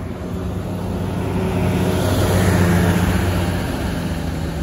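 Diesel engine of a large coach bus driving past close by, its hum swelling to a peak about halfway through and then fading as the bus pulls away.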